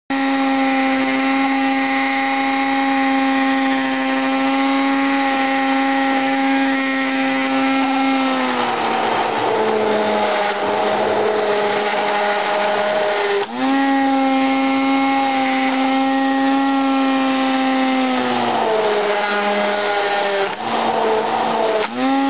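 Electric blender running at speed while pureeing the cooked cauliflower soup, a steady motor whine. After about eight seconds the pitch drops and stays lower. A short break and restart comes about thirteen seconds in, and the pitch drops again with brief stops near the end.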